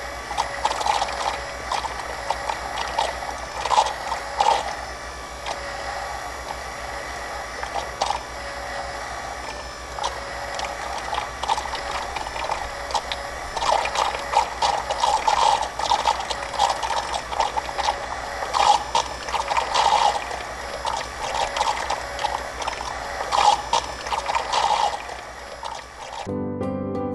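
Pump running steadily with a rapid mechanical clatter that swells and fades, draining water out of a canal cofferdam. About a second before the end it gives way to soft music.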